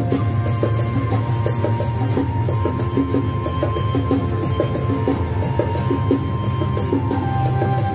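Remo bongos played by hand along with a recorded music track, dense drum strokes over held tones. A small hand-held pair of metal cups adds a bright metallic double shake about once a second.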